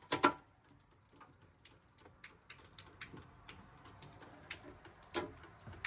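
Quiet room with faint, scattered small clicks and taps, and one sharper click about five seconds in.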